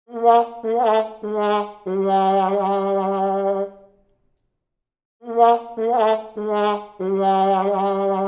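Brass 'sad trumpet' failure jingle, wah-wah-wah-waaah: three short notes stepping down in pitch, then a long low held note, played twice.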